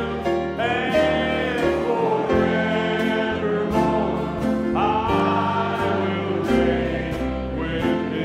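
Group singing of a slow gospel worship song, with a small band and acoustic guitar accompaniment and a steady beat.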